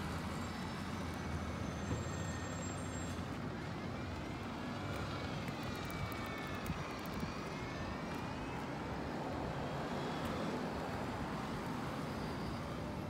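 Steady road traffic noise from a street, with a vehicle's whine that rises and then falls in pitch about four to eight seconds in.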